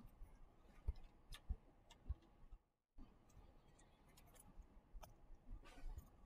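Near silence: faint room tone with scattered light clicks and a few soft thumps, like handling noise from a pen or mouse at a computer.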